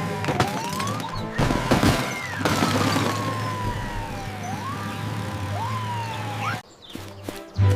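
Police siren wailing, its pitch sweeping up and down, over background music. A burst of noise comes about a second and a half in, and the siren cuts off near the end.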